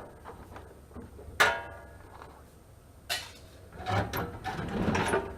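Hand tools and sheet-metal parts of a dehumidifier being handled: a sharp metallic clink with a brief ring about a second and a half in, then a short scrape, and a run of rattling and scraping near the end.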